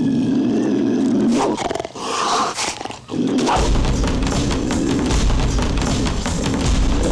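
Cartoon cheetah's growl sound effect: a long, rough, low growl, then a higher snarl. About three and a half seconds in, loud drum-driven rock-style music starts.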